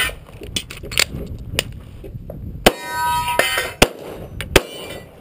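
Smith & Wesson M&P9 Pro 9mm pistol firing about six shots at an unhurried pace, roughly a second apart. Steel targets clang and ring after hits, loudest in the middle.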